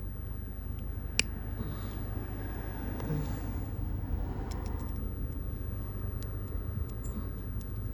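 Scattered light clicks and taps of small parts being handled, with one sharp click about a second in, over a steady low rumble.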